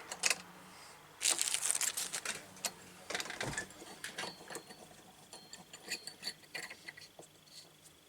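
Metal tap parts being handled and fitted during a tap insert swap: sharp clicks and light metallic rattles, with two short bursts of denser rattling in the first half.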